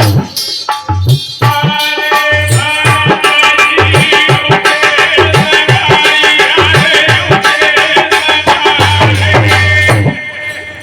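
Instrumental Indian folk devotional music: a steady drum beat with sharp strikes, joined about a second and a half in by a sustained melody line that drops away near the end.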